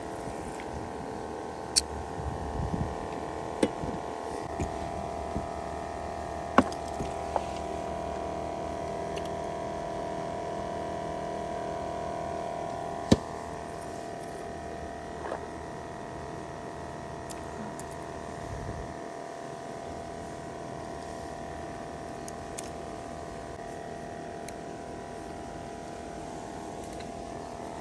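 Small outboard motor on an inflatable boat running at a steady speed with a droning hum, with several sharp knocks in the first half.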